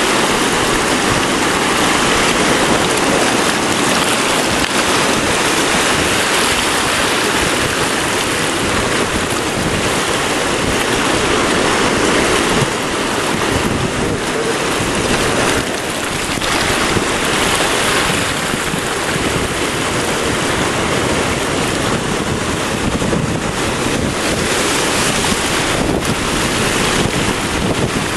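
Ocean surf washing in over a shallow rocky shoreline, a continuous rush of breaking and draining waves, with wind buffeting the microphone.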